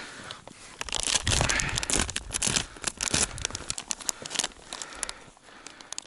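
Plastic groundbait packet being opened and crinkled by hand: an irregular run of crackles and rustles, loudest early on.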